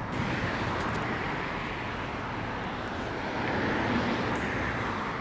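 Steady traffic noise from cars passing close by on a busy multi-lane road. It swells a little as a car goes by about three and a half seconds in.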